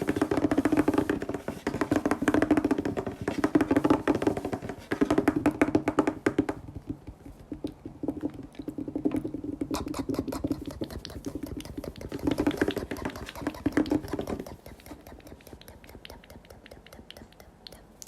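Slime being squeezed and worked by hand: dense wet clicking and squelching pops, with a pitched squeal in several stretches of a second or two. It gets much quieter about fourteen and a half seconds in.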